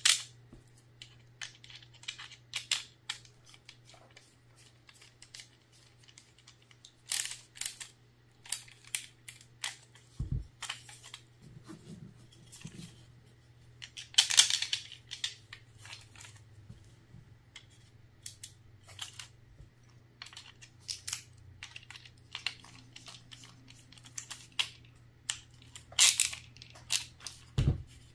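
Small plastic and metal magazine parts handled and fitted together by hand: a string of irregular light clicks, taps and rattles, a few louder knocks among them, over a low steady hum.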